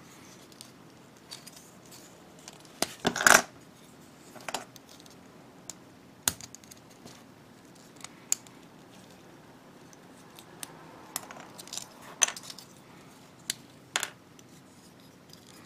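Small plastic parts of a Bandai G-Frame figure clicking and snapping as the legs and armor are pulled apart and handled. A few sharp clicks are spread through, the loudest about three seconds in.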